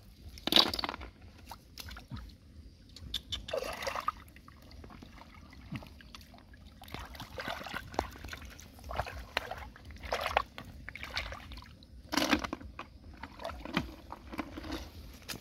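Hands and bare feet sloshing and splashing in shallow muddy water, snails being scooped out by hand, in irregular bursts with a louder splash near the start and another about twelve seconds in.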